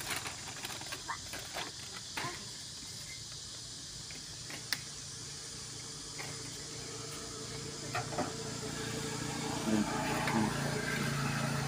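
Steady low engine hum of a motor vehicle, growing louder in the second half, with a single sharp click about five seconds in.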